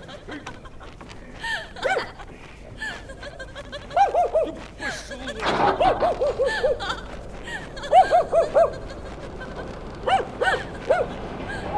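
High-pitched laughter, coming in about five runs of four to six quick 'ha's, with a breathy rush of air near the middle.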